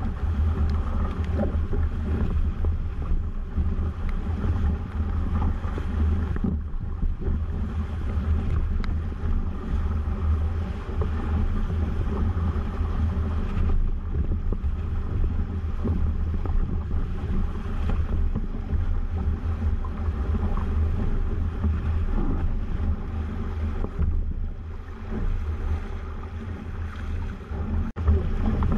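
Water rushing and splashing past the hull of a Weta trimaran under sail, with a steady low rumble of wind buffeting the microphone.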